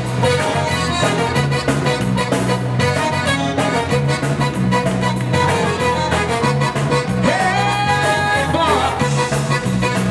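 Live zydeco band playing an upbeat dance groove without vocals, over a steady repeating bass line and a driving beat.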